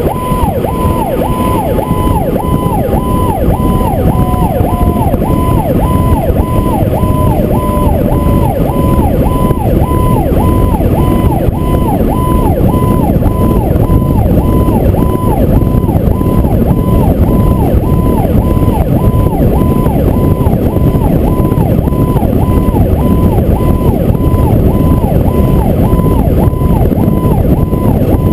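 Fire truck siren on a fast yelp, its pitch dropping and climbing back about two to three times a second, over heavy wind and road noise at the truck's side. A second, slowly falling siren tone fades out in the first ten seconds or so.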